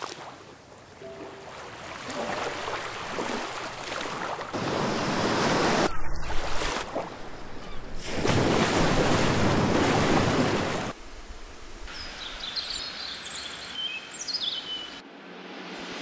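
Sea waves breaking on the shore, swelling and washing up in surges. About eleven seconds in this gives way to quieter outdoor ambience with birds chirping.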